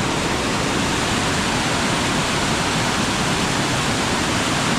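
Steady roar of the Amnicon River's waterfalls, rushing water filling the whole sound.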